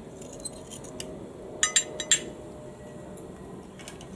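A metal skewer and knife clinking against a plate as grilled mushrooms are pushed off the skewer: four sharp clinks in quick succession about halfway through, with a few lighter taps before and after.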